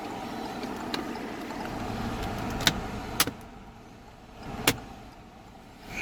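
Plastic climate control panel being pressed back into a car's dashboard, its clips snapping home with a few sharp clicks spread over several seconds.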